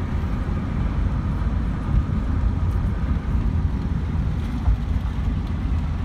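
Steady low road noise inside a moving car's cabin at highway speed: tyre and engine rumble with no break.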